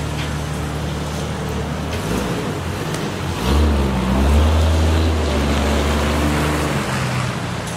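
Cars driving through a parking lot on wet pavement, tyres hissing and engines running; an SUV passes close about halfway through, its engine getting louder and then fading near the end.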